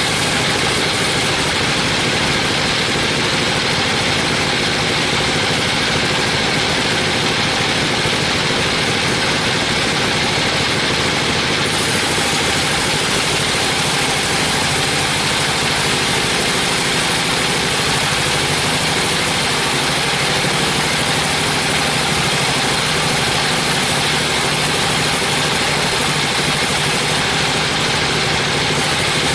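42-inch band sawmill running steadily, its blade ripping lengthwise through a teak beam: a constant loud machine drone with the noise of the cut.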